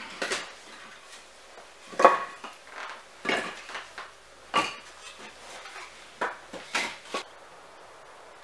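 Split firewood being loaded into a wicker basket: a series of sharp wooden clunks as the pieces knock against each other, about seven of them a second or so apart, the loudest about two seconds in.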